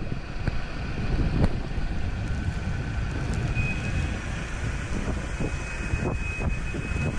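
Wind buffeting the microphone over the low running of 4x4 engines coming up the lane. A faint high whine comes and goes near the middle and end.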